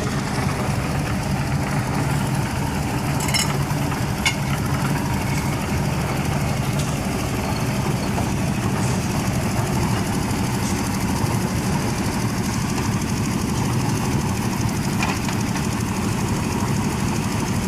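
An engine running steadily at a constant speed, with a couple of short sharp clicks about three and four seconds in.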